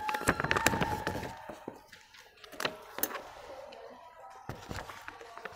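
Stiff coloured plastic sheets rustling and tapping as they are handled and set back around glass beakers, with a few sharp light knocks.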